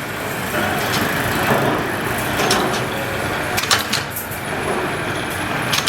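Steady machine noise from a wire mesh spot welder, broken by several sharp snapping cracks, a cluster of them about two-thirds of the way in.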